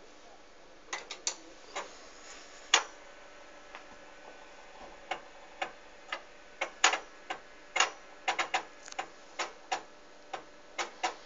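8-inch floppy disk drive of a 1983 NEC APC clicking irregularly as its head seeks and loads while the computer boots from disk. The clicks are sparse at first and come more often from about five seconds in, over a faint steady hum.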